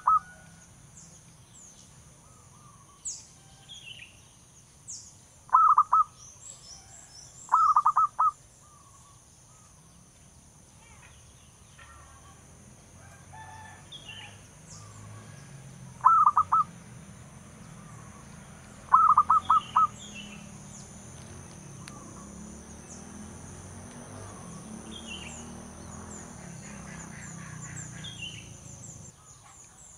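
Zebra dove giving its staccato cooing song in five short bursts of quick, rapid notes, with small birds chirping faintly between the bursts. A low rumble builds in the background from about halfway through.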